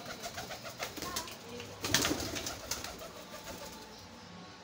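Pigeon's wings flapping as it flies in close: a quick run of wingbeats, loudest about two seconds in, then fading away.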